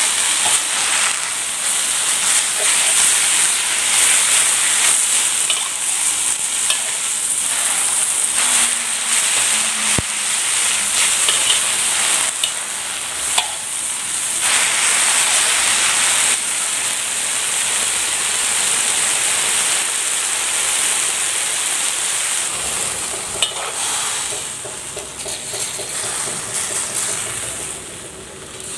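Chinese water spinach stir-frying in a wok: a steady sizzle, with the metal spatula now and then scraping and knocking against the pan. The sizzle drops off near the end.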